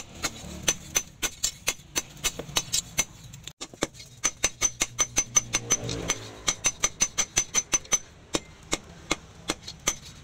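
Hand hammer striking a red-hot leaf-spring steel sword blade on a round steel post anvil: fast, steady blows about four to five a second, each with a short metallic ring, with a brief break about a third of the way in.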